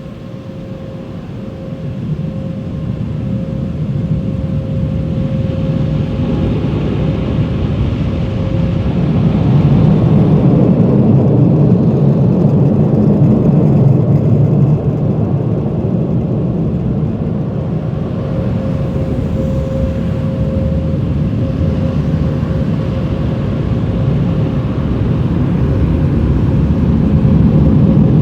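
A motor vehicle running or driving: a steady low rumble that builds over the first ten seconds or so, eases off a little midway and rises again near the end, with a faint steady tone above it.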